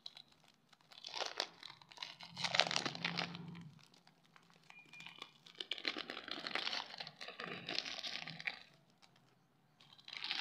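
Foil-lined Cookania WayFar wafer wrapper crinkling and tearing as it is peeled open by hand, in two long stretches of crackly rustling, with another beginning near the end.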